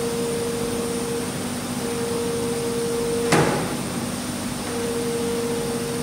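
Microwave oven door endurance tester cycling a drop-down microwave door: one sharp knock about three seconds in as the door strikes, over a steady machine hum with a tone that cuts in and out.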